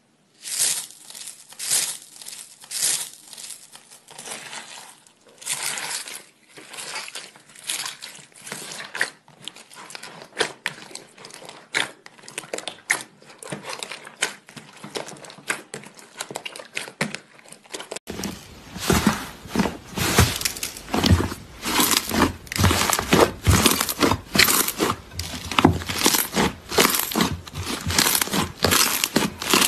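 Hands pressing and squeezing slime, first foam-bead slime and then glossy slime, making crackling, popping squishes. In the first few seconds there is about one strong press a second; after a cut about 18 s in the crackling is louder and denser.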